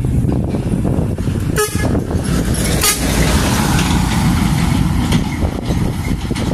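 Diesel dump truck's engine running under load as it passes close by on the climb, with two short sharp sounds about a second and a half and three seconds in, followed by a brief hiss.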